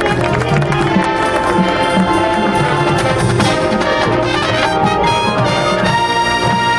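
High school marching band's brass section playing loud sustained chords, with drum-line strikes in the middle and a new chord held near the end.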